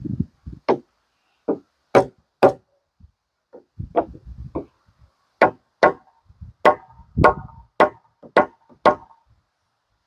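Spikes being driven into rough-sawn lumber joists: a string of sharp knocks, irregular at first, then a steadier run of about seven, roughly two a second, in the second half.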